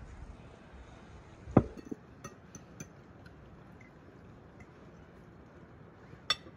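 Tableware clinking as food is served: one louder knock about one and a half seconds in, a few light clicks just after, and a sharp clink near the end.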